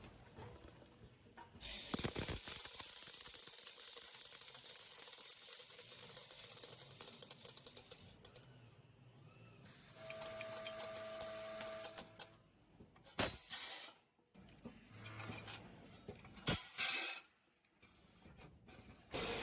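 A counting-and-packaging machine for hardware runs, with metal fasteners clattering and jingling as they are fed and weighed out, plus whirring mechanism noise. About ten seconds in, a steady tone sounds for about two seconds, followed by shorter bursts of clatter.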